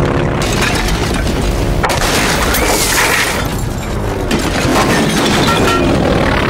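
A low-flying twin-engine propeller plane, the Hughes XF-11, crashing through rooftops: engine noise mixed with booms, shattering and breaking debris as the airframe smashes into the houses.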